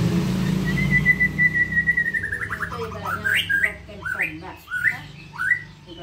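White-rumped shama singing. A held whistle starts a little under a second in and slides down into a quick run of falling notes, then a string of short, rising whistled phrases.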